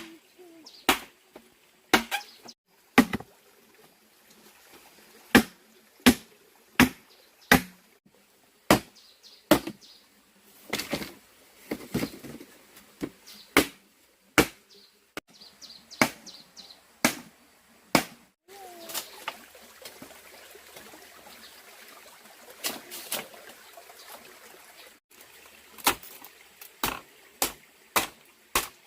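Repeated sharp blows of a hand tool, mostly about a second apart, with a few seconds' lull past the middle.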